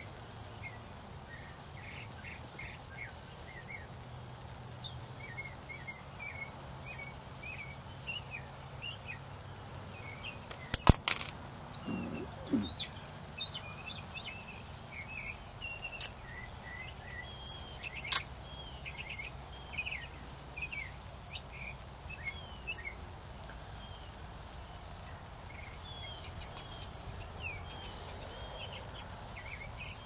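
Large flock of migrating blackbirds calling, a continual scatter of short chirps and chuck notes. A few sharp clicks stand out, the loudest about eleven seconds in.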